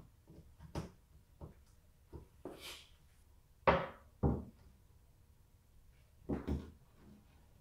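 Stainless steel luggage rack being set down and positioned on a C3 Corvette's fiberglass rear deck: a few light clicks and a brief scrape, then two sharp knocks about half a second apart, and two more close together near the end.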